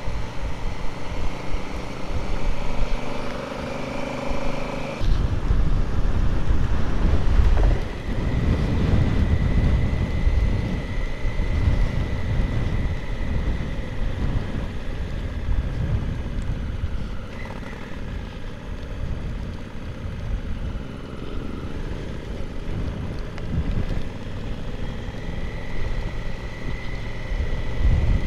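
Strong wind buffeting the microphone, an irregular gusty rumble that grows heavier about five seconds in, with a faint steady high whine beneath.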